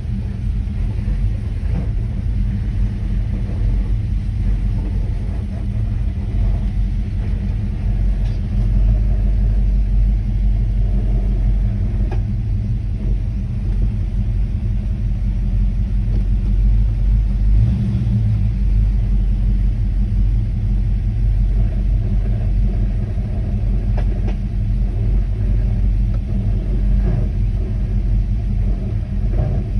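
The 350 V8 of a 1979 Camaro Z28 running steadily with a deep, even rumble, with a few faint clicks here and there.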